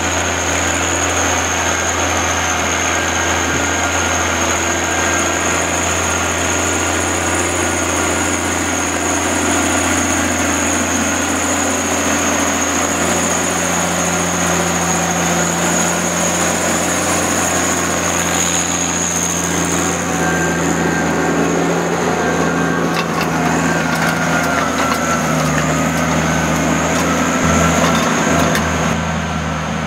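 John Deere 1110D forwarder's diesel engine running steadily, with a constant high-pitched whine above it. The engine note shifts slightly about halfway through and again near the end, and a few light knocks come in the second half.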